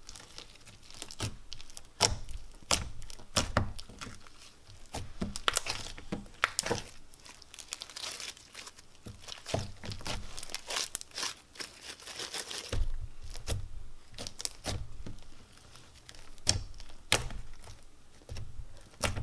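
Icy slime, a thin slime mixed with fake snow pieces and jumbo foam beads, crackling and popping in quick irregular clicks as hands stretch, fold and press it. This is the sizzle and crunch of icy slime.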